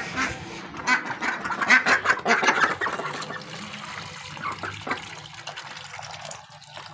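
Domestic ducks quacking and dabbling their bills in a feeding dish, busiest and loudest in the first three seconds, while water is poured into the dish from a steel mug.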